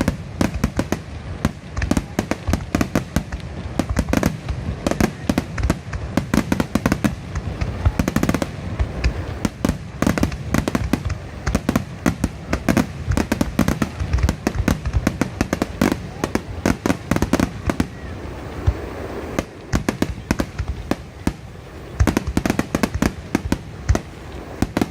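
Aerial fireworks exploding in quick succession, several sharp bangs a second with deep booms, easing off briefly about twenty seconds in before picking up again.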